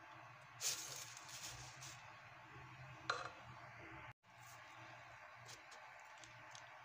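Faint kitchen handling sounds over a low steady hum: a brief scrape about half a second in, then a single ringing clink of a utensil against a dish around three seconds in.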